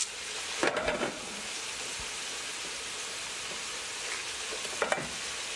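Onions and bell peppers sizzling steadily in a skillet. Brief rattles about a second in and again near the end as whole allspice berries are shaken from a jar into the pan.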